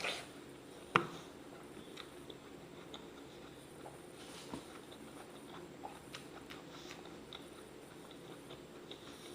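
A person chewing raw apple: one sharp, loud crunch about a second in, then quieter, irregular chewing crunches.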